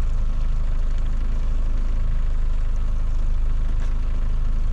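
Outboard motor running steadily at low trolling speed, an even low drone.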